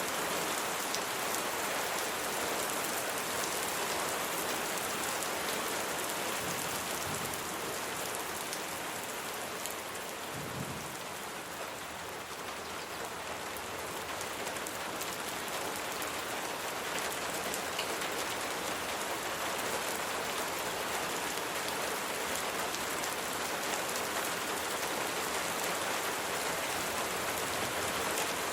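Steady rain falling, a dense patter of many drops with no break. It eases slightly for a few seconds near the middle, and a faint low rumble sounds about ten seconds in.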